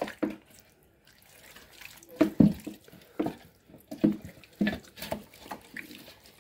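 Wet squelching of hands rubbing an oily herb-and-spice marinade into a whole raw chicken, heard as a string of separate squishes about every half second to a second.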